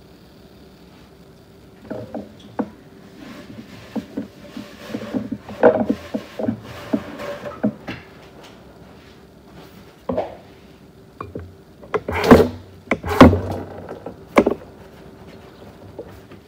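Knocks, clicks and clattering of objects being handled, with a denser patch of clatter in the first half and two loud thumps about twelve and thirteen seconds in, over a faint steady hum.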